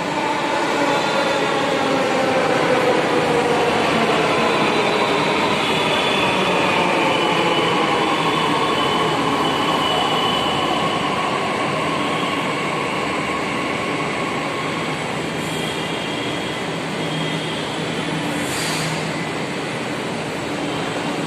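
Delhi Metro Blue Line electric train pulling into the station and braking to a stop. Its motor whine falls steadily in pitch over the first several seconds as it slows, over a continuous loud running rumble. A short hiss comes near the end.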